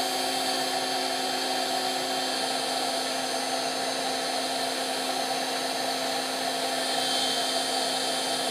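Ryobi R18HG-0 18V cordless heat gun running steadily without its nozzle: a constant rush of blown air with a steady motor hum.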